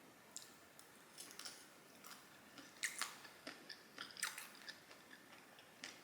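A person chewing a mouthful of bacon and scrambled egg, with irregular wet smacks and clicks of the mouth; the loudest come about three and four seconds in.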